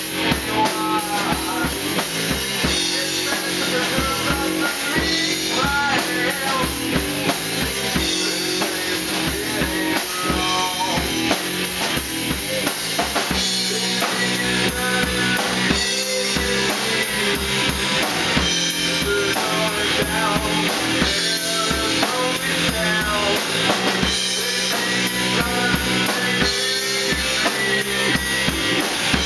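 Rock band playing live: a drum kit driving the beat under electric guitars and bass, with a vocalist singing into a microphone.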